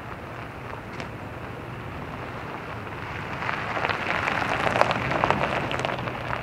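Lexus GX460 towing a small off-road trailer rolls past slowly on a dirt and gravel track: tyres crunching and popping small stones, growing louder from about halfway through as it comes close, over a low steady hum.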